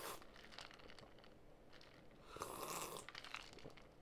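Faint sounds of a person drinking from a plastic cup and swallowing, with a louder breathy rush about two and a half seconds in.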